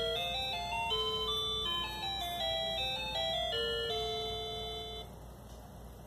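Electronic beeper tune from a Snap Circuits U6 recording IC through a small speaker: a quick melody of clean, stepped notes that stops about five seconds in. A low steady hum lies underneath.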